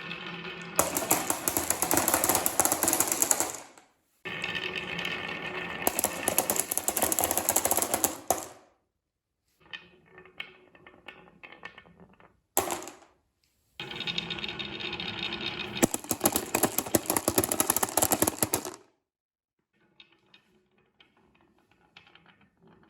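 Marbles rolling and clattering down a wooden marble run: a dense, rapid rattle in several long stretches that cut off abruptly, with softer scattered clicks between them.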